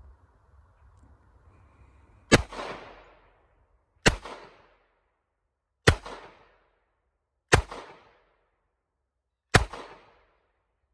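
Five gunshots fired at a steady pace, about 1.7 s apart, each followed by a short ringing echo.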